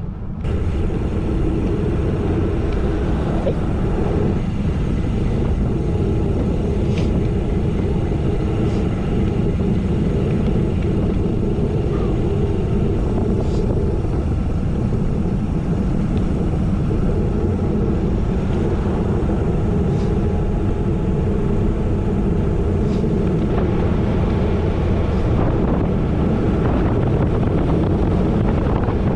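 Wind buffeting the microphone of a bicycle rider in motion: a steady low rumble with tyre noise on gravel and a few faint ticks.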